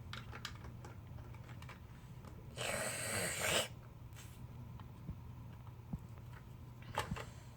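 Light clicks and taps of small plastic toy pieces being handled, with one noisy rushing burst lasting about a second near the middle.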